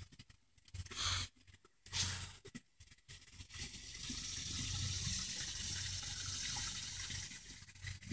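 Small creek's water running, a steady wash of noise that comes up about three and a half seconds in, after two short bursts about one and two seconds in.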